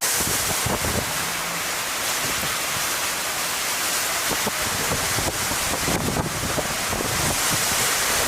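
Strong storm wind rushing and buffeting across the microphone: a loud, steady roar of noise that starts abruptly.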